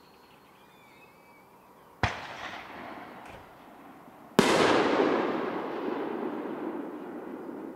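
Two sharp bangs about two and a half seconds apart, the second louder, each dying away in a long rumble.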